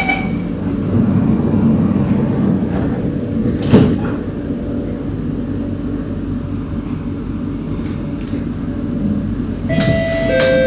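Singapore MRT train doors sliding shut and closing with a sharp thud about four seconds in, just after the door-closing chime ends. The stationary train hums steadily, and near the end a stepping electric whine starts as the train begins to pull away.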